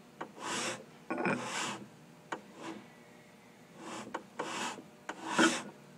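Thick copper disc scraping across a wooden tabletop in several short strokes with pauses between them, dragged along by eddy-current drag from a neodymium magnet moved just above it without touching.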